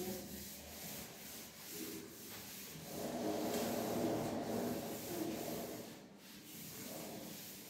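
A duster rubbing chalk off a chalkboard in repeated wiping strokes, louder for a couple of seconds about three seconds in.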